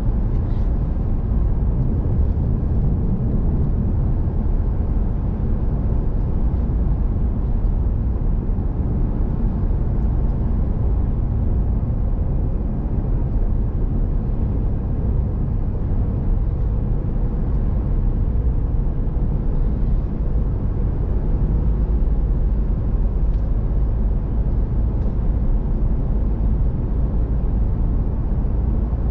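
Steady road noise of a vehicle driving at speed, heard from inside the cabin: a low, even rumble of tyres and engine, with a few faint ticks.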